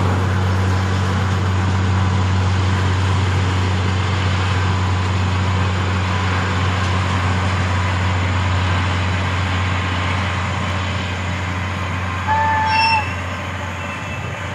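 DE10 diesel-hydraulic locomotive running with a steady low engine drone over the rush of a train on the rails. Near the end comes one short whistle toot.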